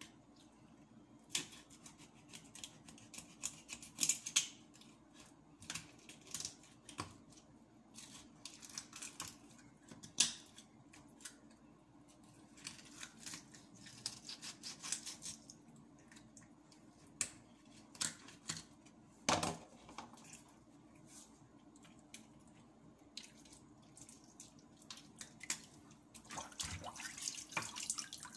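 Knife working on a raw fish while it is cleaned: irregular scrapes, cuts and taps on a cutting board, with water dripping into a basin near the end.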